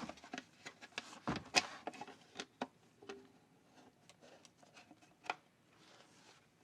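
Light clicks and knocks of a hard plastic and rubber tablet case being handled and fitted, the loudest about a second and a half in and another near five seconds.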